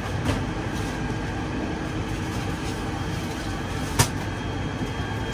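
Steady hum of ventilation air inside a parked Airbus A380-800's cabin during boarding, with a single sharp click about four seconds in.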